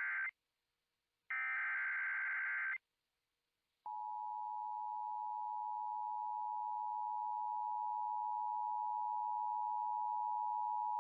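EAS SAME header data bursts on NOAA Weather Radio: the end of one burst, then about a 1.5-second burst of harsh warbling digital tones. After a second of silence comes the steady single-pitch 1050 Hz weather radio alert tone, held about eight seconds. This is the attention signal that announces a new severe thunderstorm warning.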